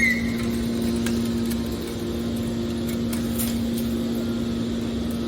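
Small aluminum can baler's motor running with a steady hum.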